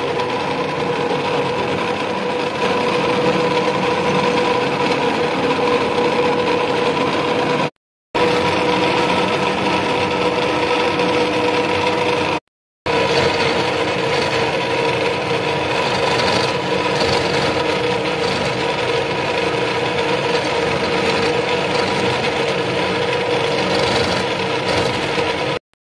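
Electric drill running steadily with a small bit boring a hole into a teak wood stock, the motor humming under the rasp of the bit cutting wood. The sound breaks off for a moment about 8 and 12 seconds in and again near the end.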